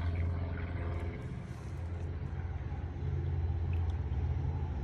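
A steady low rumble of mechanical background noise, growing slightly louder about three seconds in.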